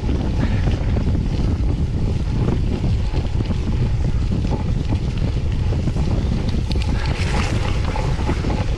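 Wind rumbling on the microphone of a camera carried on a moving mountain bike, with frequent rattles and knocks from the bike running over rough trail.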